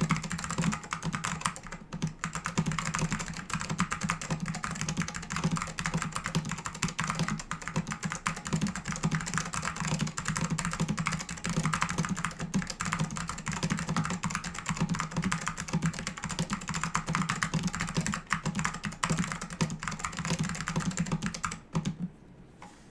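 Continuous fast typing on a mechanical keyboard with tactile SKCM Orange Alps switches and thick PBT keycaps in a plastic case with a plate. The keystrokes stop about a second before the end.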